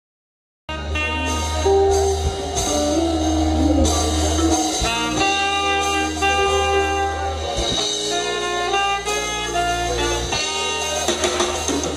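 Live band playing, led by a saxophone over electric guitars, a bass line with long held notes and a drum kit. The music starts abruptly less than a second in.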